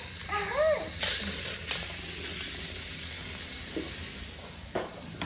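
A child's brief wordless exclamation, rising and falling in pitch, about half a second in, followed by faint hiss and low background noise.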